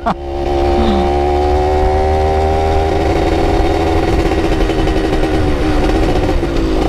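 Yamaha F1ZR's two-stroke single-cylinder engine, fitted with a replacement exhaust, pulling under acceleration. Its pitch rises steadily, then dips briefly near the end at a gear change and starts climbing again.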